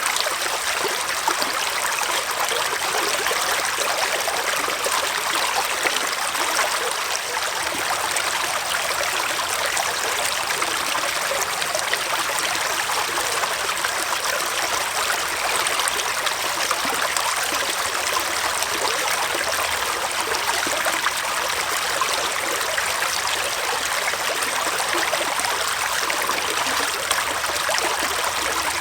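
Small forest stream flowing and trickling steadily over rocks, a constant rushing babble of water.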